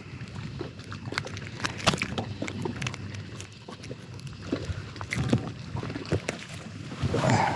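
Scattered small clicks and knocks of handling in a small fishing boat, over a faint steady background noise, with a louder rustle near the end.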